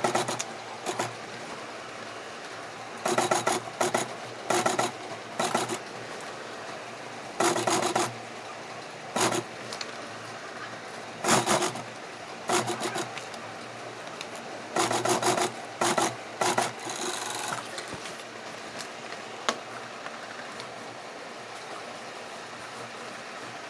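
Industrial sewing machine stitching leather in about nine short runs. Each run is a quick patter of needle strokes lasting from half a second to about a second and a half, with pauses between them.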